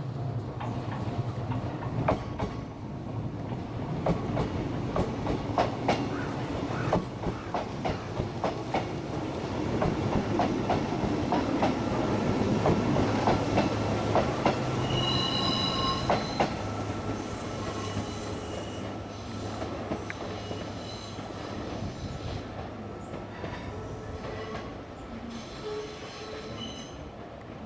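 Kintetsu 16200 series electric train running over rail joints and points with repeated clacking, then short high-pitched wheel squeals after the middle and again near the end as the sound fades.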